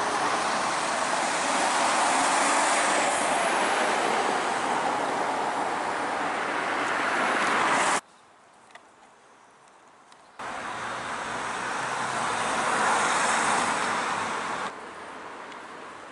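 Car noise on a town street: a long swell of engine and tyre noise from a passing car that builds and fades, a sudden cut to quiet for about two seconds, then another car swelling past, and quieter street noise near the end.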